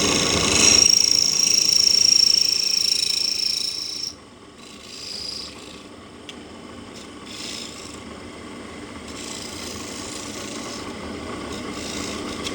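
Wood being worked with an abrasive: a loud scraping with a steady high whine that cuts off suddenly about four seconds in, then softer, uneven rubbing strokes on the wood.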